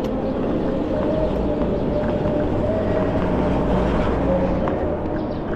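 Electric scooter riding noise: a steady low rumble of wind on the microphone and tyres rolling over pavement, with a faint steady hum.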